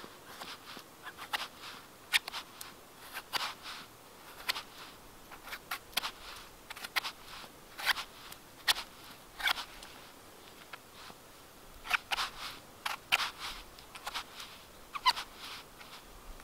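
Knife blade cutting into a horse's hoof fungus (Fomes fomentarius), separating the trama layer for amadou: irregular short, crisp strokes, some in quick runs and some single.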